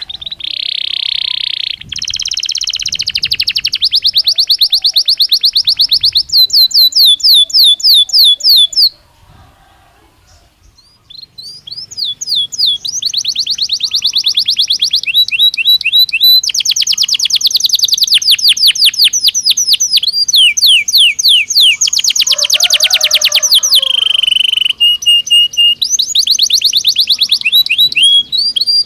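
Domestic canary (Belgian canary) singing in fast, high trills of quickly repeated notes, changing from one rolled phrase to the next. The song breaks off about 9 seconds in and starts again about two seconds later.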